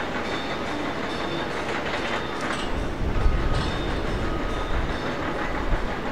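Widebody twin-engine jet airliner on final approach: its engines make a steady rumble with a faint whine, and the low rumble grows heavier about three seconds in.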